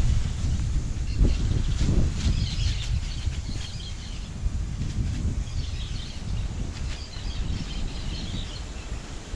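A flock of parakeets chattering in spells of quick, high chirps, over a steady low rumble of wind on the microphone.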